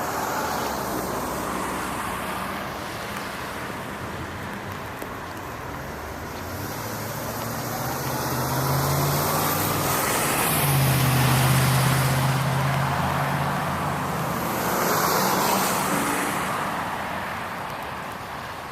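Road traffic passing on wet pavement: a steady wash of tyre noise that swells as vehicles go by, loudest in the middle, where a vehicle's low engine drone joins it, and swelling again near the end.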